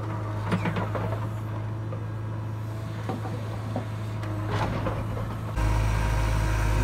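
JCB 3DX backhoe loader's diesel engine running steadily under hydraulic load as the backhoe bucket works broken rock, with a few knocks and clatters of stone against the steel bucket. Near the end the engine sound turns abruptly louder and deeper.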